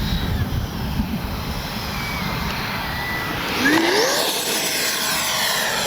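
A 70 mm electric ducted fan RC jet flying, a steady rushing fan noise whose whine rises in pitch and gets louder about three and a half seconds in.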